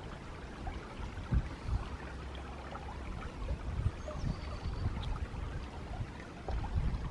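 Water running and trickling in a woodland stream, with gusts of wind rumbling on the microphone.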